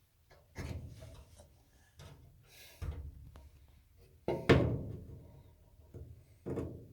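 A series of irregular knocks and thunks, about six in all. The loudest comes about four and a half seconds in.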